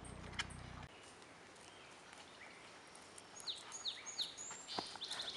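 Faint outdoor ambience with a songbird singing: a few quick downward-sweeping whistled notes from about three and a half seconds in, then a fast trill near the end.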